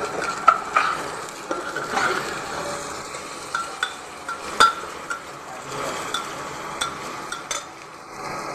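Spatula stirring taro pieces frying in a pan over a steady sizzle, with sharp irregular clinks of the spatula striking the pan; the loudest clink comes about halfway.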